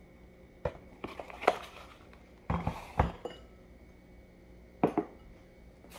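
A cut-glass bowl being handled and set on a stone countertop: sharp knocks and glassy clinks in small groups, one about a second in, another around two and a half to three seconds, and a pair near five seconds.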